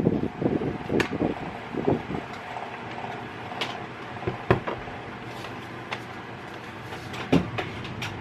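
Close handling noise of a plastic electronics box and its cable being moved about: rustling at first, then scattered clicks and knocks, the sharpest about four and a half seconds in, over a faint steady hum.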